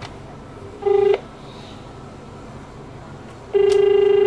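Desk telephone on speakerphone: a short tone about a second in, then a click and the exchange's steady, low-pitched dial tone from the loudspeaker, holding on near the end. The line is off-hook.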